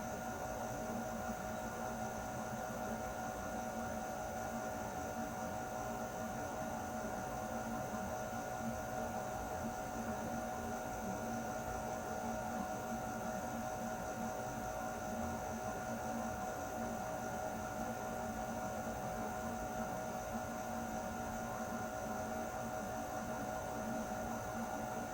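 Air conditioner running steadily: an even rush of air with a constant hum made of several fixed tones.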